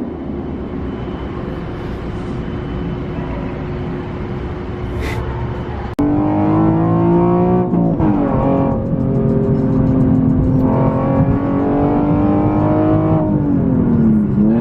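Nissan 370Z's 3.7-litre V6 running through a Motordyne Shockwave exhaust while driving. It starts as a steady low drone. After a sudden cut about six seconds in, a louder engine note rises in pitch, drops at a gear change, holds steady, and falls away near the end.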